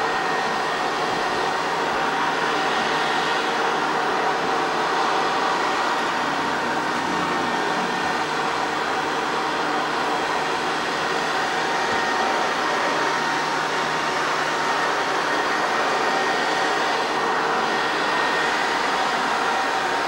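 Vacuum cleaner running steadily: an even rush of air with a constant motor whine.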